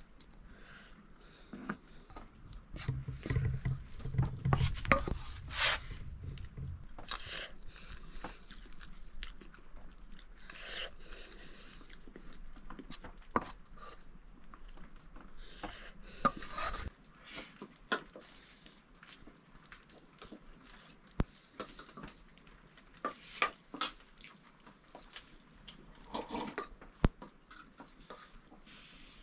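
Eating from steel plates: scattered clinks and scrapes of a spoon and fingers on stainless steel, with chewing. A low rumble lasts a few seconds about two seconds in.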